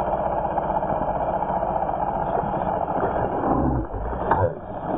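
Slowed-down replay audio: a low, steady rumble, then a deep, drawn-out splash about four seconds in as a bass strikes a topwater popper lure.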